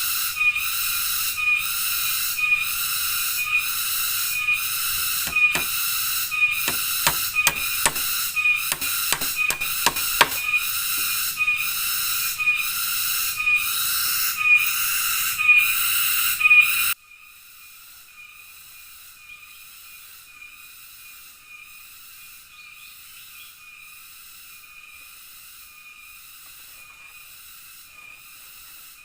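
Dense rainforest insect chorus, a high, evenly pulsing drone. A run of sharp knocks comes in the middle. Partway through, the chorus drops suddenly to a much fainter level and carries on.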